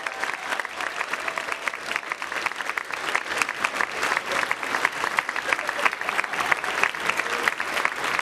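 A crowd applauding: many people clapping in a dense, steady patter.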